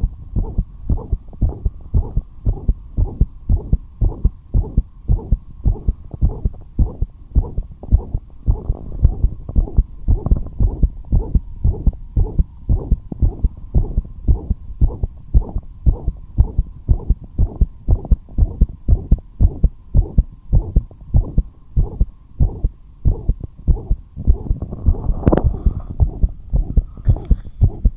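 A human heartbeat recorded close to the chest, beating quickly and regularly as a steady train of low thumps, with a faint hum between the beats. The uploader calls it a heart murmur and says it beat fast despite resting. There is one louder, sharper knock near the end.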